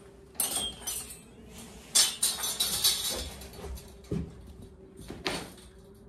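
A thin steel sawmill bandsaw blade being flipped down and coiled by hand, rattling and clinking against itself in sharp bursts: one about half a second in, a dense run from two to three seconds in, and another a little after five seconds.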